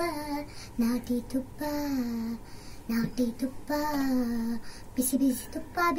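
A young girl singing unaccompanied into a studio microphone, with a long falling note about two seconds in and another about four seconds in.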